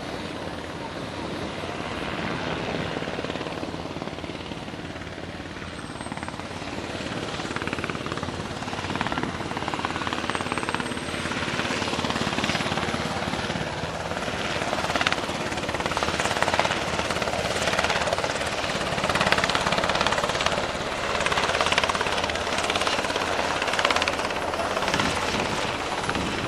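Sikorsky UH-60 Black Hawk helicopter flying with a Humvee slung beneath it: steady rotor and turbine engine noise that grows louder as it comes closer.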